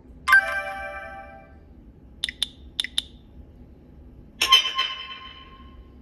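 Nokia 6234 preloaded message and email alert tones played one after another through the phone's small loudspeaker: a bright multi-note chime that rings out, then four quick high blips in two pairs, then another bright chime that rings out.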